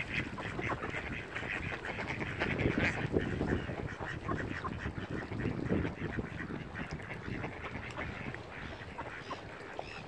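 Mallard ducks quacking, many short calls overlapping.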